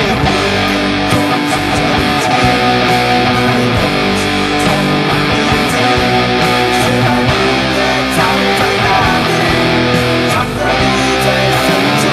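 Guitar-driven rock music playing steadily, with a brief dip in level about ten seconds in.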